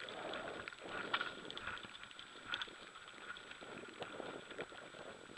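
Mountain bike ridden fast down a dirt trail, rattling and clattering irregularly over the bumps, with tyre noise on the dirt underneath.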